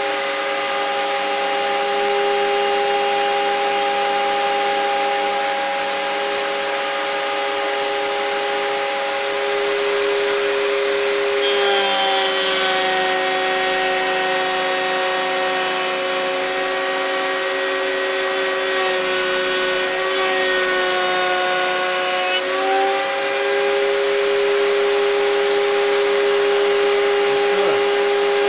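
Router in a table running steadily with a shop vacuum drawing off the dust. Partway through its whine drops slightly in pitch and a cutting hiss joins for about ten seconds as a board is fed through the bit, then the pitch comes back up as the router runs free again.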